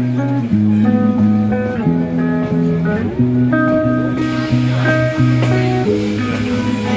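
Background music led by guitar, with notes that change in steps. A faint hiss joins under it about four seconds in.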